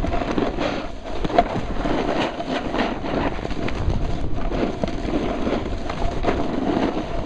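Wind buffeting the camera's microphone: a steady low rumble and rush with irregular gusts, over a faint steady hum.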